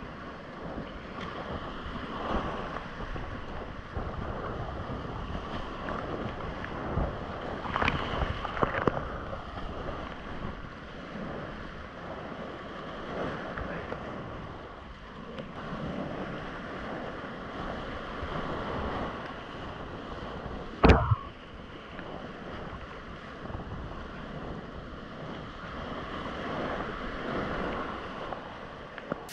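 Whitewater rapids rushing around a kayak as it paddles down the river, with splashes from paddle strokes and waves and wind on the microphone. One sudden loud hit about two-thirds of the way through.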